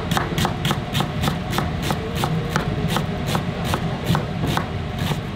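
A chef's knife dicing an onion on a cutting board: quick, even chopping strokes, about four or five a second, that stop near the end. A steady low hum runs underneath.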